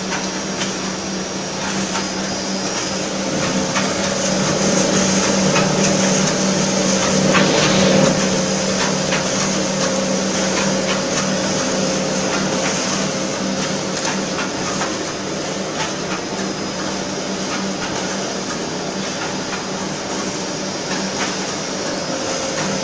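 Spindleless veneer peeling machine running, its rollers turning a log against the knife: a steady motor hum with a higher whine and faint irregular ticking, a little louder between about four and eight seconds in.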